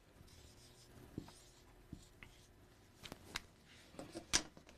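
Faint writing and handling sounds: a light scratching in the first second or so, then several separate light clicks and taps, the sharpest near the end.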